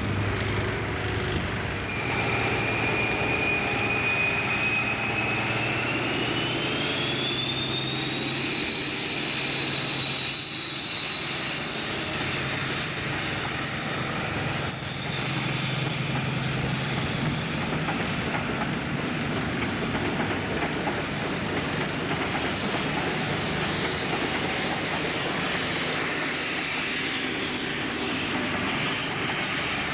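InterCity 125 (HST) train running past, its Class 43 power cars' Paxman Valenta diesel engines giving a steady low rumble under a high turbocharger whistle. The whistle rises in pitch about six to nine seconds in, and a second, higher whistle comes in about twenty seconds in.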